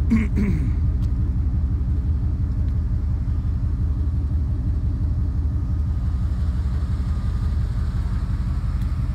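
Steady low rumble of a vehicle engine running at idle.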